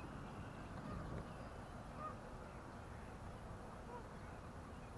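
Geese honking faintly in the distance, a couple of short calls, over low outdoor background noise.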